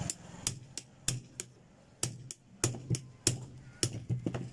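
Steel rod driven against the stator of a madhani buttermilk-churn motor to knock the stator out of its housing: about a dozen sharp metal knocks, roughly three a second and unevenly spaced.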